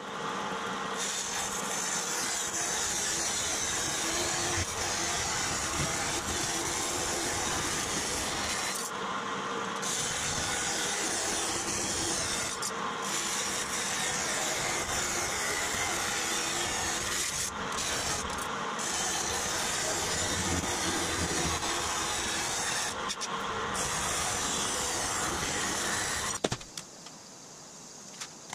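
Vertical bandsaw cutting thin aluminum sheet: a steady rasping hiss of the blade through the metal, with a few brief breaks, stopping about 26 seconds in.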